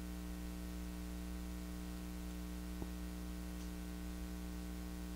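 Steady low electrical hum over a background hiss, the mains hum and noise of the recording setup, with one faint click a little under three seconds in.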